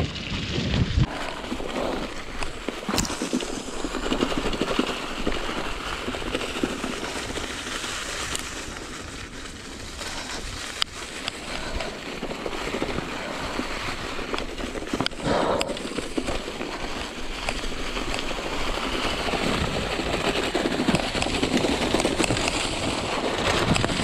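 Mountain bike rolling down a leaf-covered forest trail: continuous tyre noise over leaves and dirt, with rattling and sharp knocks from the bike over bumps, and wind buffeting the microphone.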